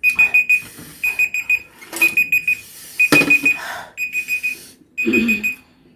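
Digital alarm timer beeping in quick groups of four short high beeps, about one group a second, marking the end of a 10-minute time limit. A few brief knocks and rustles come between the beeps.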